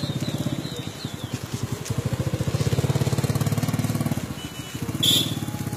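A small motor vehicle's engine running close by, a low, rapid pulsing note that grows louder in the middle. A short, sharp high-pitched sound comes about five seconds in.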